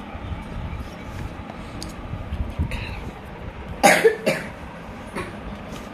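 A person coughing twice, sharply, about four seconds in, over a steady low rumble and faint ticks of the phone box being handled.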